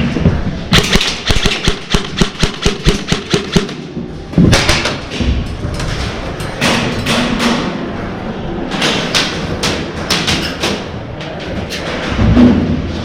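Airsoft guns firing in rapid strings of sharp shots, about five a second. One string runs for about three seconds near the start and another about nine seconds in.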